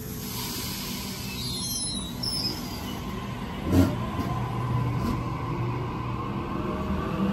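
Electric suburban train pulling out of a station and accelerating, its traction motors whining in several tones that climb steadily in pitch. A hiss sounds at the start, and a single clunk comes about halfway through.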